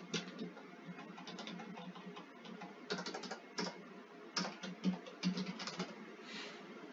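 Computer keyboard typing: irregular runs of quick keystrokes with short pauses between, as code is being typed.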